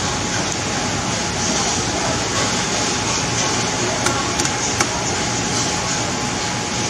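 Steady noisy background din at a fish counter with a faint steady hum. A little after four seconds in come three short sharp clicks as a knife works into a whole salmon on a wooden chopping block.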